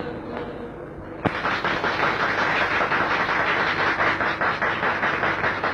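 The tail of a song fades, and about a second in an audience bursts into applause, a dense clapping that carries on steadily.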